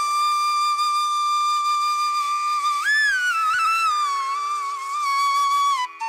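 Background music: a single melody instrument holds one long note, bends up briefly about halfway through and slides slowly down near the end, over a steady drone.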